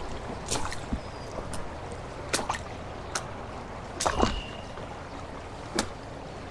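River water by the bank: a steady low rush with irregular small splashes and plinks, about half a dozen, spread unevenly.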